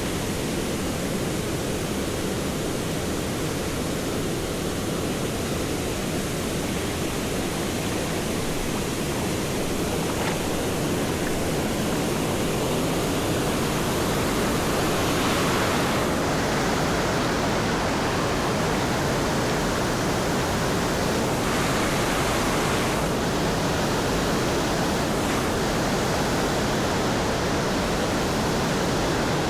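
Waterfall: a steady, even rush of falling water, a little louder from about halfway.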